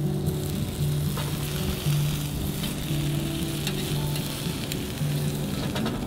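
Steak sizzling on an iron griddle plate, a steady hiss with scattered small pops. Background music with slow, low held notes plays underneath.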